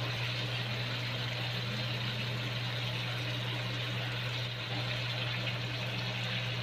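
Pork ribs sizzling and simmering in barbecue sauce in a frying pan, an even hiss over a steady low hum.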